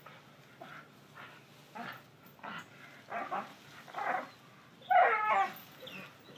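A dog barking in a string of short bursts, about one every half second to second. The loudest and longest bark comes about five seconds in.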